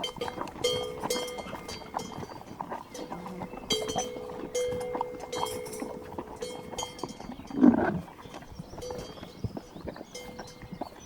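Bells worn by grazing livestock ringing and clinking on and off as the animals move their heads, with small clicking sounds between. One brief louder sound from an animal comes about three-quarters of the way through.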